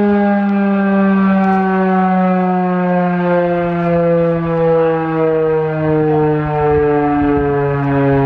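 Federal Signal 2001-130 rotating outdoor warning siren winding down, its pitch falling slowly and steadily. The sound swells and fades every second or so as the horn turns.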